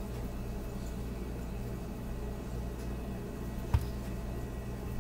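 Steady low hum of kitchen room noise, with a single sharp knock a little under four seconds in.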